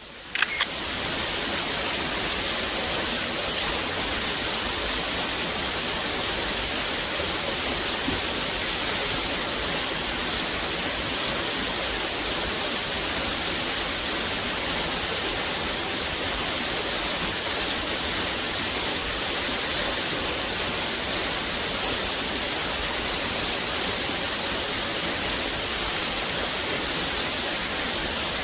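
Steady rushing-water noise played as a white-noise nature track, an even hiss with no changes. A couple of sharp clicks sound about half a second in as it fades up.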